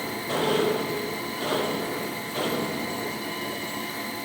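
Automatic drilling machine running while it drills holes in a steel pellet-mill flat die: a steady mechanical noise with a brief tone about half a second in and two small swells later on.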